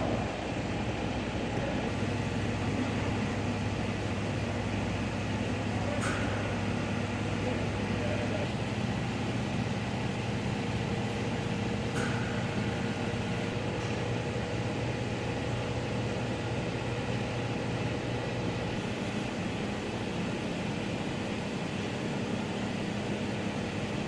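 Steady background hum and air noise of a workshop, with a low electrical or fan drone under an even hiss. Two faint brief clicks sound several seconds apart.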